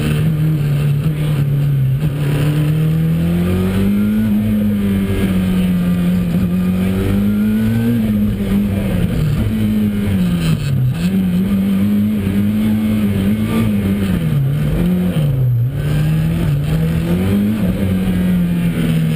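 Ford RS200 Evo's turbocharged four-cylinder engine under hard driving, heard from inside the cabin. The engine pitch climbs and drops again and again as the car accelerates, lifts and changes gear.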